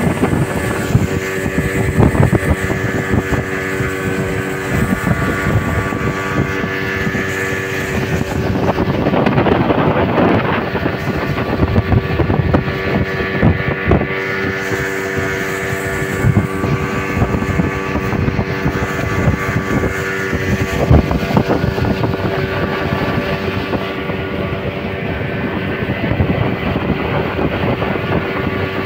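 Motorboat engine running steadily under way, a constant drone with wind buffeting the microphone. There is a louder rush about ten seconds in.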